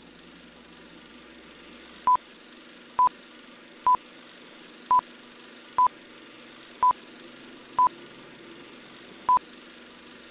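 Film-leader countdown beeps: eight short beeps of one pitch, about a second apart, over a steady film hiss.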